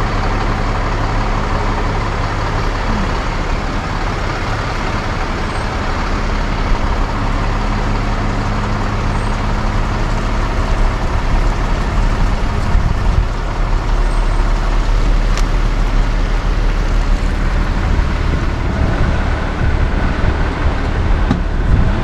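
Rollback tow truck heard from inside its cab, driving along with a steady low engine drone and tyre and road noise, pulling an SUV on a wheel dolly.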